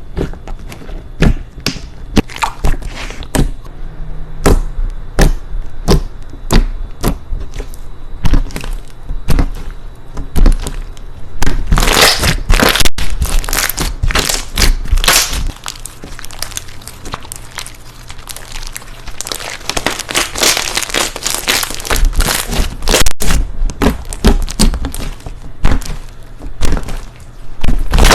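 Slime being squeezed and pressed by hand, giving a run of sharp clicks, pops and crackles. The crackling thickens into a dense, continuous stretch about twelve seconds in and again around twenty seconds in.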